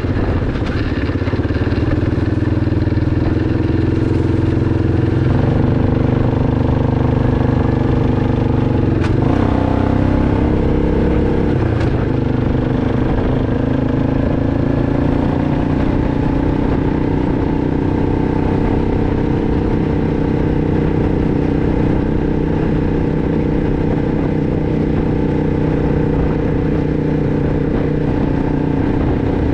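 2006 Arctic Cat 500 ATV's single-cylinder four-stroke engine running while being ridden. The engine note changes about five seconds in, dips and rises again around nine to twelve seconds in, then holds steady.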